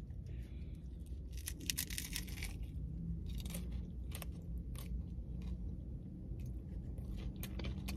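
Close-up biting and chewing of crispy fried food, with many small crunching clicks scattered through. A low, steady hum runs underneath.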